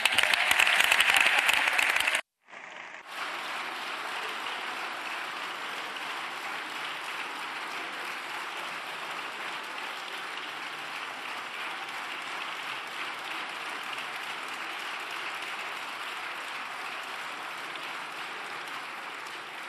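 Deputies applauding in a large parliamentary chamber. A loud burst of clapping breaks off sharply about two seconds in, then steady applause resumes at a lower level and eases off near the end.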